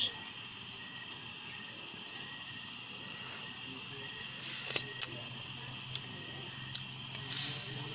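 A cricket chirping steadily in even pulses, about five a second. A faint low hum runs underneath, and there are a couple of sharp clicks, the loudest about five seconds in.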